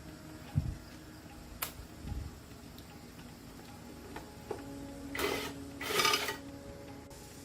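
Workshop handling noises from tools and parts: two low thuds and a sharp click, then two short rasping scrapes about a second apart near the end.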